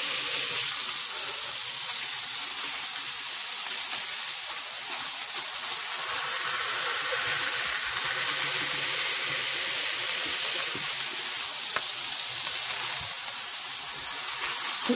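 Raw ground beef smash-burger patties sizzling steadily on an electric flat-top griddle heated to about 375°F.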